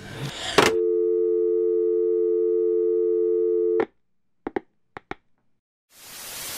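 A click, then a steady telephone dial tone for about three seconds that cuts off sharply. A few short clicks follow, and near the end a burst of TV static hiss begins.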